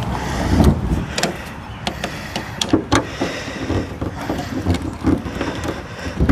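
Driving screws through a hood scoop into a steel hood by hand: irregular clicks, knocks and scrapes of a screwdriver and metal parts being worked, with no motor running.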